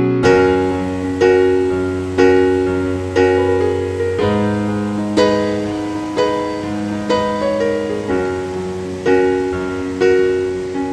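Background music: a piano playing a slow, gentle melody over low held bass notes, with a new note or chord struck about once a second, each one fading away.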